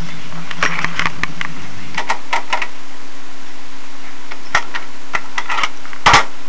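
Irregular clicks and knocks of a Sony TC-WR710 cassette deck being handled and its controls pressed, over a steady low hum and hiss. A faint low tone underneath stops about two seconds in.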